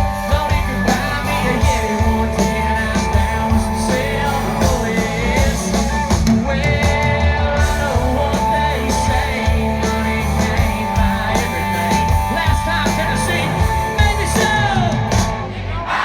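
A live country-rock band playing loudly, with singing over the band.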